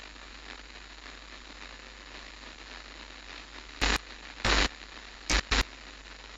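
Steady static hiss over a low hum, broken by four short loud bursts of static crackle between about four and five and a half seconds in.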